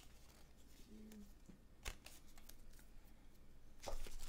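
Pokémon trading cards handled quietly, with a couple of soft clicks, then the foil wrapper of a booster pack crinkling near the end as it is picked up.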